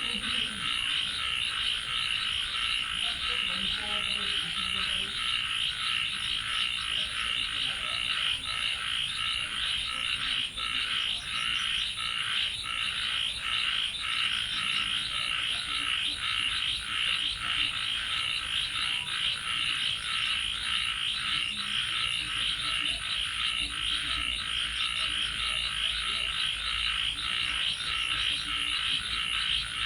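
A dense night chorus of many frogs calling together, a steady mass of rapid pulsed trills. A thin, steady high-pitched tone runs above it throughout.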